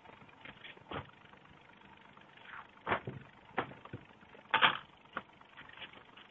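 Paper pattern sheets being handled and shifted on a work board: a few short rustles and taps, the loudest about four and a half seconds in.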